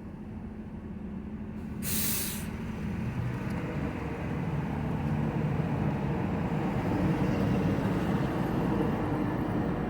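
A short hiss about two seconds in, then the low rumble of a passing heavy vehicle building up and running steadily.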